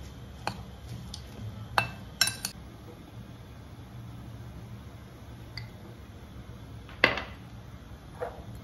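A metal spoon clinking against a ribbed glass bowl while stirring sliced green chillies and adding flour: a handful of sharp clinks, some with a brief glassy ring, the loudest about seven seconds in.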